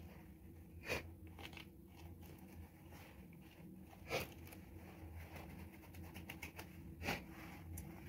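Granular bonsai soil crunching and grating as hands press it down into a pot, with three louder scrapes about three seconds apart and a faint steady hum underneath.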